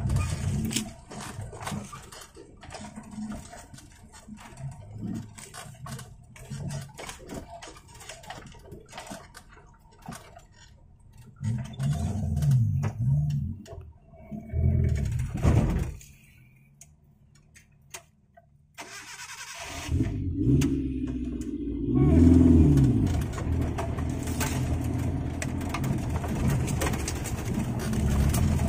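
Off-road 4x4's engine revving up and down in bursts as it crawls over rough trail, with scattered knocks. Past the middle the sound cuts out to near silence for about three seconds, then the engine comes back and revs harder to the end.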